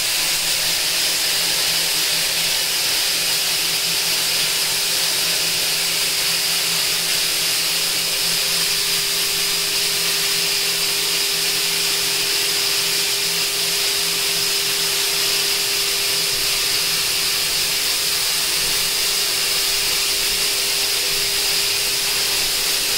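CNC router spindle spinning a 3D-printed impeller fan on its collet at about 24,000 rpm: a loud, steady rush of air with a constant whine underneath.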